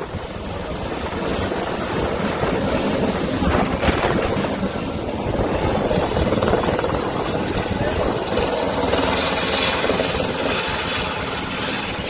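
Tour helicopter taking off from a helipad and flying away low, its turbine and rotor blades making a loud, fairly steady rush that eases off slightly near the end.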